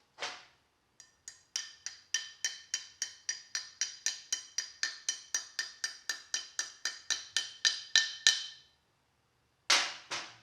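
Hand hammer tapping on a steel Camaro door hinge, seating a new pin and bushing: one strike, then a steady run of ringing metal-on-metal taps at about four a second, getting harder toward the end, and two heavier blows near the end.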